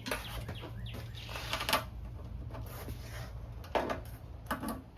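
A few small metallic clicks and clinks of oil-pan bolts and washers being handled and started by hand, over a steady low hum.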